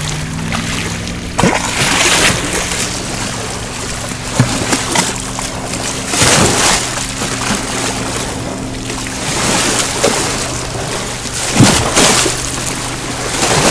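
Background music of sustained chords that change a few times, over small lake waves washing onto sand and splashing against rocks, with louder splashes as the dog snaps at the water.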